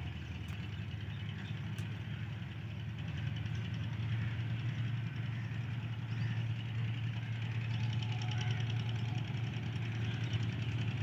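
Diesel-electric locomotive of the GEU-40 class hauling a loaded coal train, heard approaching from a distance: a steady low engine drone that grows gradually louder from about four seconds in.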